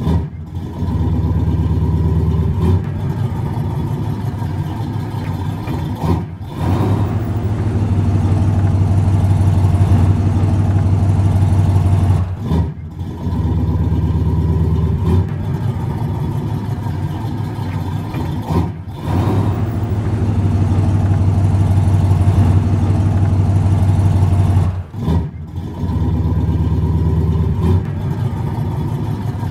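Muscle car engine running with a deep exhaust note, its level stepping up and down as it is revved. The recording breaks off briefly and restarts about every six seconds.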